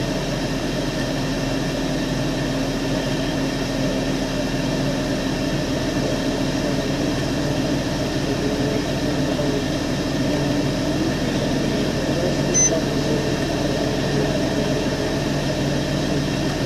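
Steady hum inside a vehicle, its engine idling and ventilation fan running, with one small click about three-quarters of the way through.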